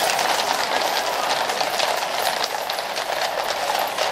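Many horses' hooves clip-clopping on a paved road as a mounted cavalry column passes: a dense, continuous clatter of hoofbeats.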